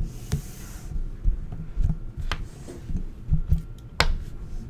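Low, irregular thumping and hum with three sharp clicks, about two seconds apart.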